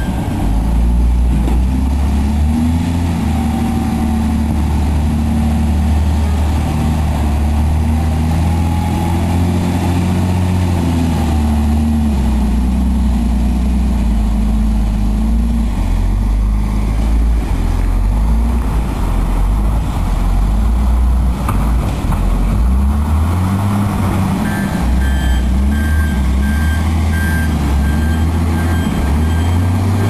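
A heavy vehicle's engine running, its low drone shifting in pitch, with a beeping alarm sounding on and off near the end.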